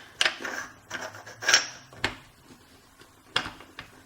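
Metal clicks and knocks from handling an American 5200GLKA padlock, about five separate strikes with the loudest about a second and a half in.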